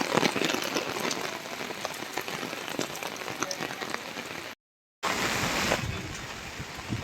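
Heavy rain falling on a surface, a dense steady hiss of many small drop ticks. It cuts out to complete silence for about half a second a little past the middle, then resumes.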